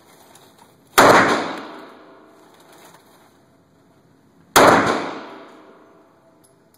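Two shots from a Glock 17 9mm pistol, about three and a half seconds apart. Each is a sharp crack followed by a long echo that fades over a second or more off the walls of the enclosed indoor range.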